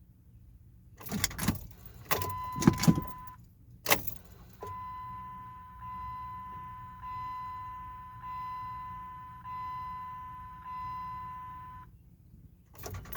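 A few clunks and clicks, then a car's electronic warning chime: one tone briefly, then the same tone repeating about once a second for several seconds before it stops.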